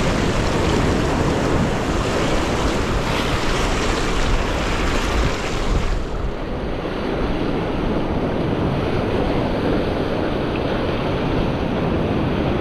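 Sea surf washing against a rocky shore, with wind buffeting the microphone. The higher hiss drops off sharply about halfway through.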